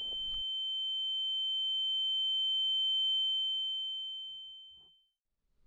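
Ear-ringing sound effect: a single steady high-pitched tone that slowly swells, then fades away about five seconds in.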